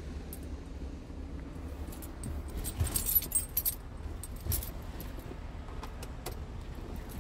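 Scania P truck's diesel engine idling steadily, heard from inside the cab, with a bout of metallic jingling and clicks about three seconds in and another click a little later.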